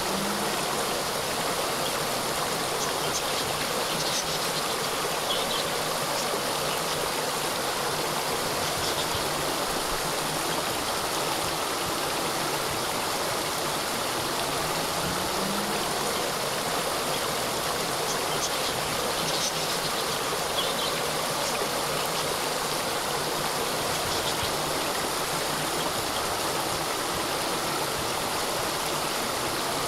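Small waterfall (cascade) with water falling and splashing in a steady, even rush. Faint high chirps come in two short spells.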